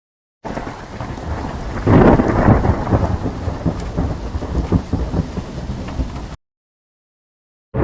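Thunderstorm sound effect: rain hiss with a rolling rumble of thunder that swells loudest about two seconds in. It starts abruptly just under half a second in and cuts off sharply about six seconds in.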